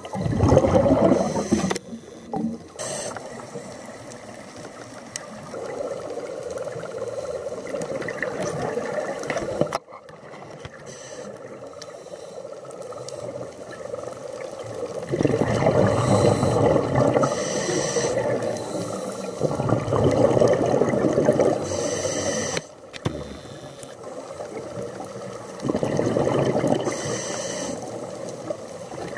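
Scuba breathing heard underwater: a diver's regulator, with exhaled bubbles gurgling up in loud surges of two to three seconds, four times, and a fainter hiss in between.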